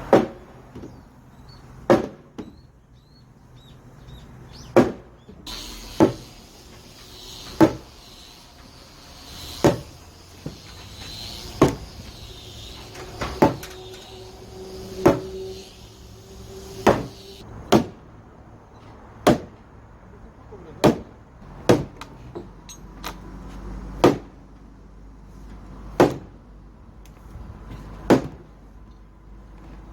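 Repeated heavy blows of a mallet or hammer on timber, about one every one to two seconds, each a sharp knock with a short ring, as timber members are driven together during assembly.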